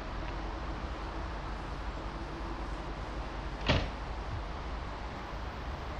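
Steady low rumble of a railway platform with a train standing, and one sharp slam a little past halfway through: a regional train's coach door shutting before departure.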